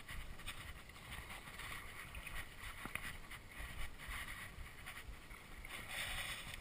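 Wind buffeting the microphone in uneven gusts, a rumble with a faint hiss over it, at the water's edge.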